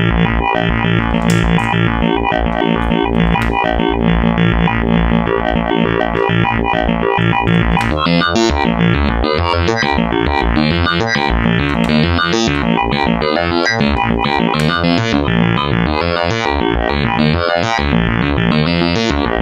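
Make Noise Spectraphon spectral oscillator in a Eurorack modular synthesizer, playing a dense, steady pitched drone rich in harmonics. About eight seconds in it switches to a rhythmic run of changing spectra, its timbre stepping several times a second, as a clocked array of stored spectra plays back.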